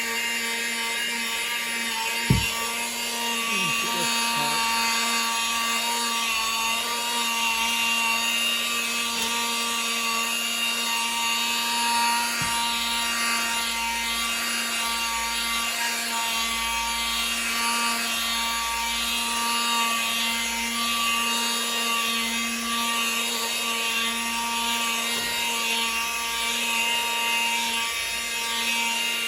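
Handheld power polisher spinning a foam pad against windscreen glass: a steady motor whine that holds one pitch, with the pad rubbing and dragging on the glass. A single sharp knock sounds a couple of seconds in. The glass is being buffed to clear dust and overspray that make the wiper squeak.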